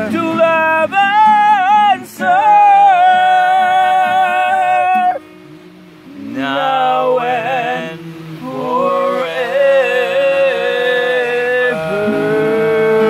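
A man singing with long held notes to his own acoustic guitar accompaniment. The singing breaks off for about a second midway, then resumes.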